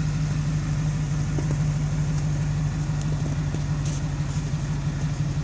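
Truck engine idling steadily, an even low hum.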